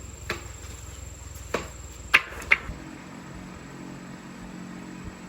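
Four short, sharp knocks, irregularly spaced, over a low rumble. About halfway through, the rumble gives way to a steady low hum.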